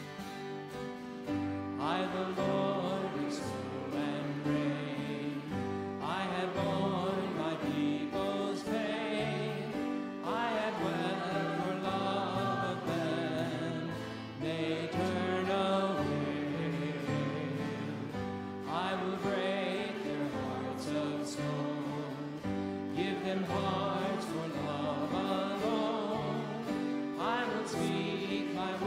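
Congregation singing a hymn with instrumental accompaniment, in slow phrases of held notes.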